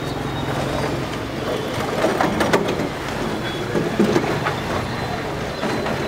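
Vehicle engine idling steadily, with a few short knocks and rustles about two seconds in and again about four seconds in.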